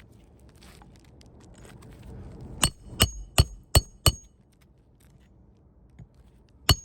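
Hammer driving a roofing nail into an asphalt shingle: five quick ringing metal strikes about a third of a second apart, then one more near the end, after some quiet handling sounds.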